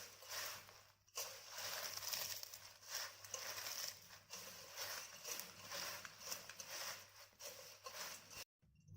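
Puffed rice with crushed potato chips and sev being mixed in a bowl: a dry, crisp rustling in repeated strokes that cuts off suddenly near the end.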